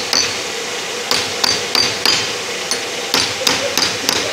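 Repeated metal-on-metal hammer taps, about two to three a second, each with a short high ring, seating a washer/spacer onto the mainshaft of a Mercedes G221 truck gearbox during assembly.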